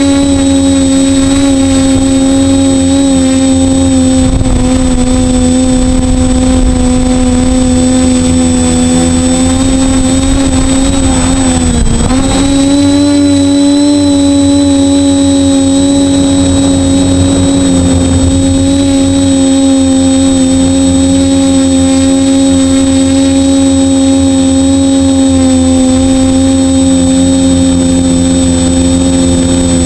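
Quadcopter's four worn 2208 brushless motors and propellers whining steadily in flight, with a dip in pitch about twelve seconds in as the throttle comes off and then back on. A thin high-pitched whine and rumbling buffeting run underneath.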